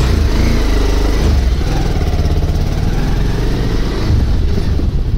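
Motorcycle engine running steadily as the bike rides slowly along, its pitch drifting a little with the throttle.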